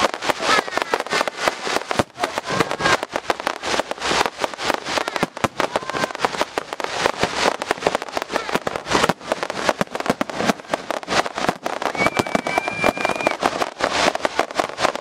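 Fireworks display going off: a dense, continuous run of bangs and crackles from bursting shells and sparkling fountains.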